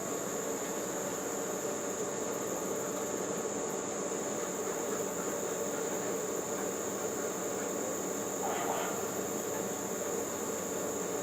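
Steady high-pitched chorus of insects, with a faint brief sound about eight and a half seconds in.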